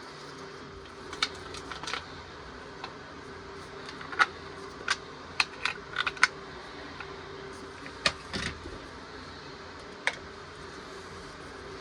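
Irregular sharp clicks and light clatter of tools and parts as the top cover of a Pioneer P-41 chainsaw is taken off, over a faint steady hum.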